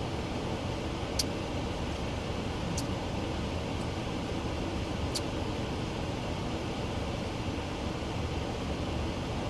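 Steady low rumble and hiss of background noise, with three faint, sharp clicks spread through it.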